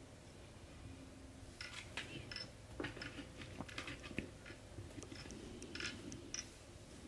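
Faint scattered clicks and scratchy rustles of hands handling a fly-tying vise and the thread wound on a hook, starting about one and a half seconds in.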